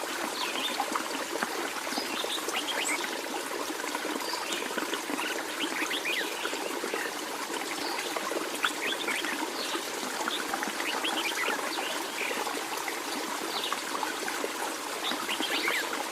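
Water trickling and babbling steadily, with many small quick plinks and gurgles over a constant rush.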